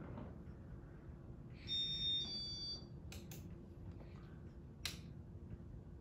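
Casablanca Panama 52-inch ceiling fan running with a faint steady hum. About a second and a half in, a short electronic beep of several high tones lasts about a second, followed by a few sharp clicks.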